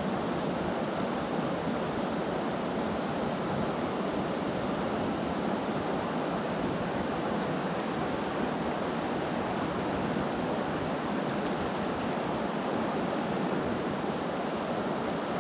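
A high, flood-swollen mountain creek rushing steadily over riffles.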